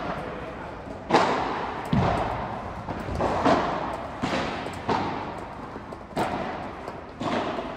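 Padel rally: the ball is struck by paddles and bounces on the court, giving around nine sharp pops at irregular intervals of about half a second to a second, each followed by a long echo from the enclosed hall.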